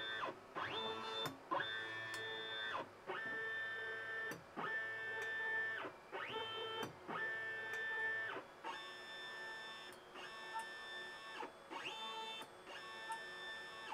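Stepper motors of a homemade 4-axis CNC hot-wire foam cutter homing the machine: a dozen or so short whining moves. Each rises in pitch, holds a steady tone for about a second, then falls away, with brief pauses between moves.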